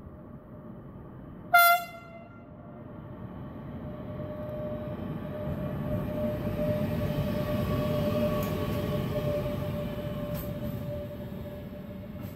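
Crossrail Traxx electric locomotive gives one short horn blast as it approaches, then runs past hauling a container freight train. The rumble of the locomotive and wagons builds to a peak at mid-passage and eases as the containers roll by, with a steady ringing tone under it.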